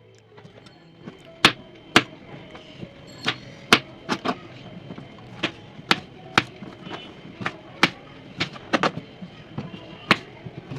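Knife chopping on a cutting board: irregular sharp knocks, about one or two a second.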